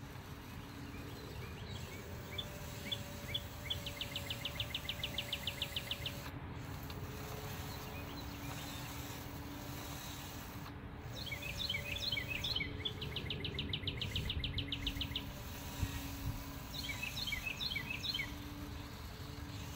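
A songbird singing three times, each song a few separate chirps running into a fast, even trill. A steady low hum runs underneath.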